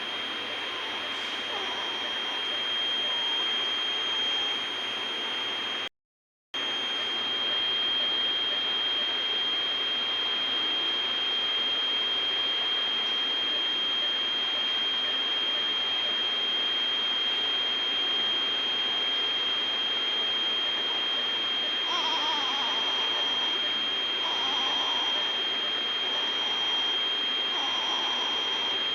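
Steady hiss of neonatal care equipment with a constant high-pitched whine over it. The sound cuts out for half a second about six seconds in, and near the end a few faint short sounds come about every second and a half.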